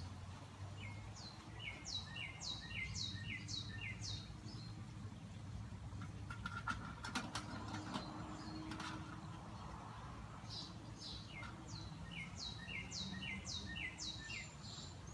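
A songbird singing two phrases, each a series of five or six quick down-slurred whistled notes at about two a second, one phrase about a second in and the other near the end. A few faint clicks come in the middle.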